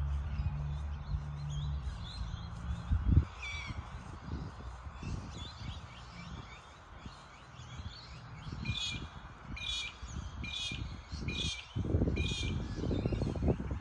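Birds calling in lakeside parkland, scattered calls, then a repeated call about twice a second in the second half. Under them is a low steady hum for the first three seconds and low rumbling gusts near the end.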